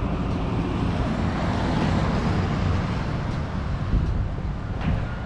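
A pickup truck driving past on a wet road: tyre hiss and engine noise swell to a peak about two seconds in, then fade as it goes by.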